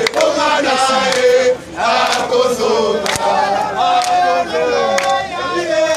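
A crowd of demonstrators singing and chanting together, many voices holding long notes and sliding between them, with a few sharp clicks cutting through.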